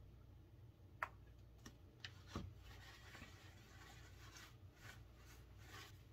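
A few light clicks and taps as a plastic oil bottle is squeezed and set down, then faint rubbing of a paper towel wiping finishing oil over a wooden mallet head.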